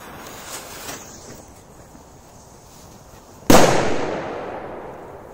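A P-200 firecracker: a short hiss as its fuse is lit, then about three and a half seconds in a single loud bang whose rumble trails off over a second or so.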